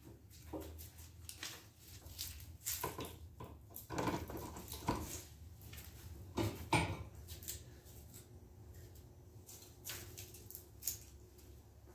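Irregular clicks and knocks of a plug and light switches being handled to power up a streetlight and switch off the room lights, busiest in the middle, with two more clicks near the end, over a faint low hum.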